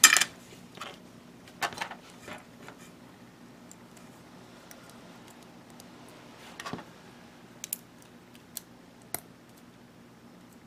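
Small plastic model-kit parts handled and pressed together by hand: a sharp click at the start, then scattered light clicks and taps.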